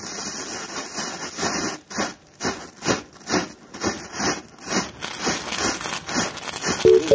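A chain of matchsticks catching one after another, their heads flaring in a fizzing hiss that surges about twice a second.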